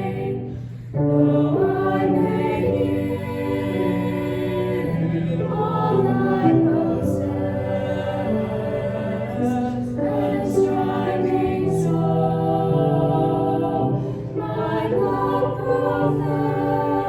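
A choir singing a sacred piece in harmony, with long held chords that change every second or two.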